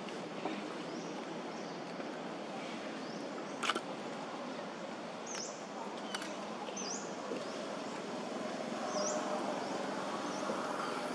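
Outdoor ambience: steady background noise with small birds chirping now and then in short sweeping notes, and a single sharp click about four seconds in.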